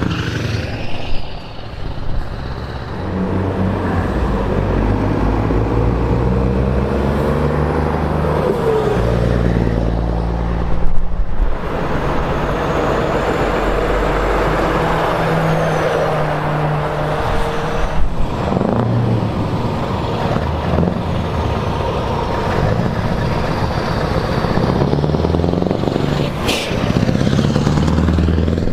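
Heavy diesel trucks driving past one after another, their engine notes stepping up and down as they change gear, with a brief sharp sound near the end.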